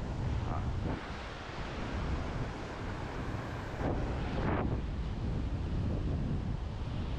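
Strong wind buffeting the microphone in a heavy low rumble, with surf washing on the beach behind it and a louder rush about four seconds in.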